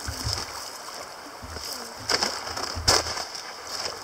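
Large hooked steelhead splashing and thrashing at the river's surface as it is landed, over the steady rush of the stream. Two sharper splashes come about two and three seconds in.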